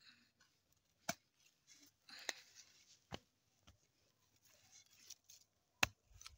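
Faint rustling of dry stalks and crop debris in a vegetable bed, with a few sharp, isolated clicks and a brief rustle about two seconds in.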